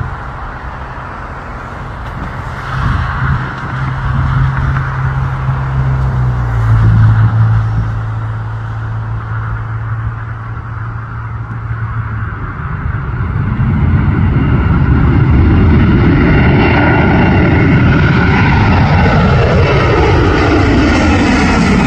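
Jet engines of a twin-engine airliner at takeoff thrust: a low, steady rumble during the roll that swells into a loud roar as the aircraft climbs overhead, with several tones sliding down in pitch as it passes.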